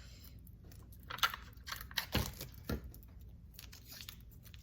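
Handling noises from a slime container as slime is scraped off it: scattered small clicks and scrapes, a few sharper ones about a second and two seconds in.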